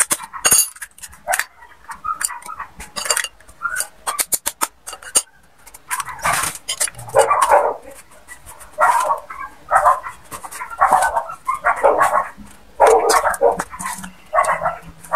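A dog barking repeatedly, about one bark a second, starting about six seconds in. Before that, sharp clicks and taps of a spoon cracking eggshells against a stainless steel mixing bowl.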